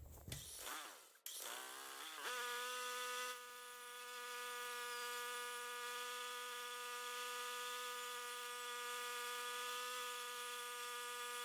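Small engine of a homemade band sawmill winding up with a rising pitch about two seconds in, then running at a steady, even buzz.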